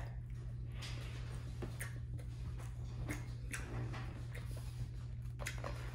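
Quiet chewing of a mouthful of fried chicken nugget, with a few soft, irregular mouth clicks over a steady low hum.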